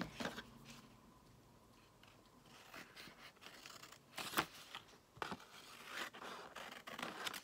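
Scissors cutting paper: a few separate snips and short cutting strokes after a quiet pause of a couple of seconds, faint.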